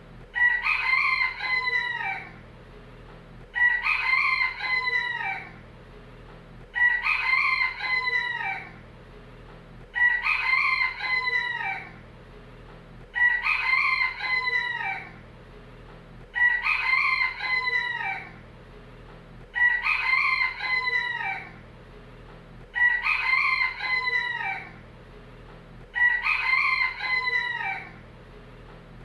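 A rooster crowing, the same cock-a-doodle-doo repeated at an even pace about every three seconds, nine crows in all, each about two seconds long.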